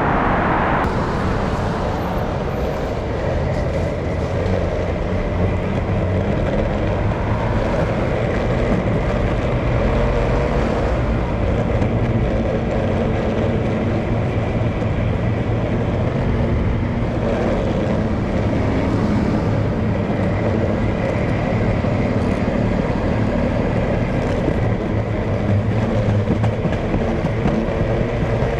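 Steady vehicle and traffic noise: a continuous rumble with road hiss that holds at an even level throughout.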